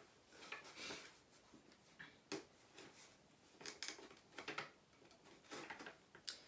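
Faint, irregular scratches and clicks of a knife cutting at packing tape and handling a cardboard box.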